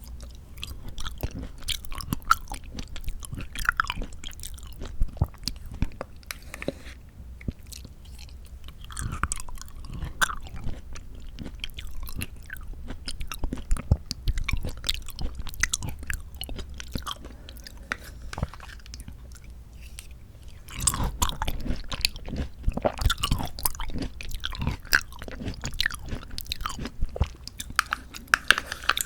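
Mouth eating sounds of canned mandarin orange segments from a Sunkist fruit cup being chewed: many small wet clicks and smacks in an uneven run, busiest about two-thirds of the way in.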